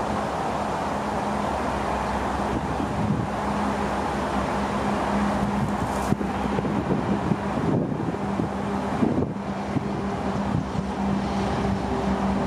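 Diesel locomotive engine of an approaching Union Pacific freight train, a steady low drone that grows slightly louder toward the end, over wind rumble on the microphone.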